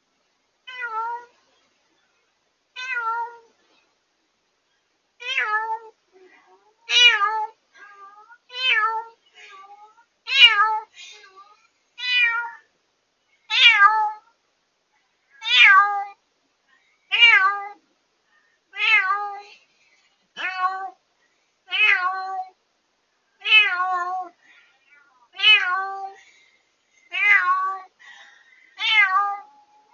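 Domestic cat meowing loudly and over and over, one falling meow about every one and a half to two seconds, the first two softer and the voice growing lower toward the end. It is the night crying of a newly rescued former stray left alone in its cage, heard through a pet-monitoring camera with some distortion.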